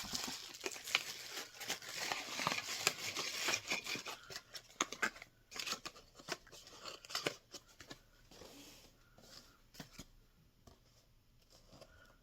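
Rustling and crinkling of ornament packaging being handled, with scattered clicks and taps; busiest for the first four seconds or so, then sparser and quieter.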